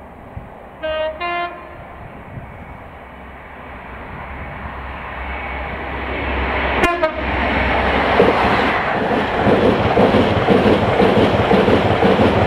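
Blue Pullman HST sounding two short horn notes, the second a little higher, about a second in, then growing louder as it approaches and running through the station with a steady rumble and rhythmic wheel clatter as the coaches pass close by. A short sharp sound comes just before it arrives.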